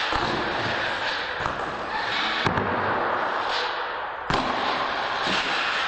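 Radio-controlled monster truck tumbling and crashing on a concrete floor: sharp knocks of the truck hitting the ground, one at the start and the loudest about four seconds in, over a steady rushing noise.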